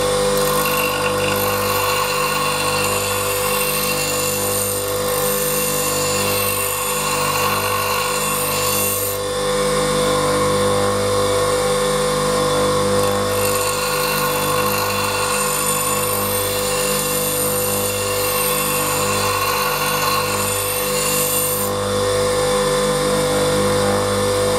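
Bench grinder running with a steady motor hum while the edge of a scissor blade is ground against its wheel. The hiss of steel on the stone rises and falls as the blade is worked along the wheel.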